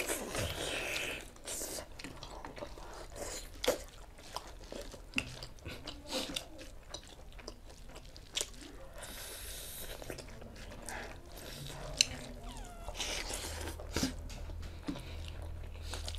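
A person chewing food close to the microphone: irregular wet mouth clicks and smacks throughout, with a brief hissing breath or slurp about nine seconds in.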